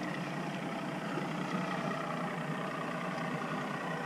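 Outboard boat motors running steadily, a continuous engine hum with no change.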